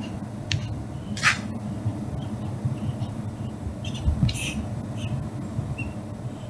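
A cat playing with a toy: scattered short rustles and clicks over a steady low hum, the loudest about a second in and again about four seconds in.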